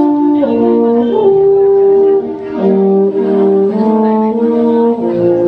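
Concert band of brass and woodwinds playing held chords that move to new notes about once a second, with a brief softer moment a little after two seconds in.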